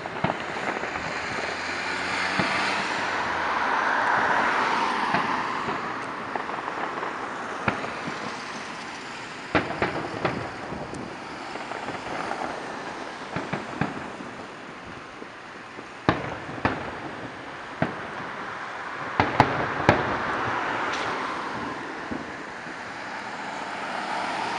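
Distant fireworks going off in irregular sharp bangs, some in quick clusters, over the sound of passing street traffic that swells and fades as cars and a van go by.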